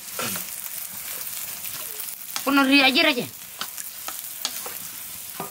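Bamboo tongs stirring and turning wet nettle leaves in an aluminium pot: a steady crackly rustle with scattered light clicks. Around the middle, a voice briefly calls out, the loudest sound.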